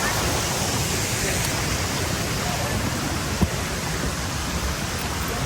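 Steady rushing of falling water, with a single sharp click about three and a half seconds in.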